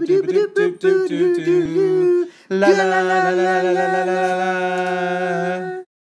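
A voice singing an a cappella title jingle in quick, short notes, then holding one long note for about three seconds before cutting off abruptly.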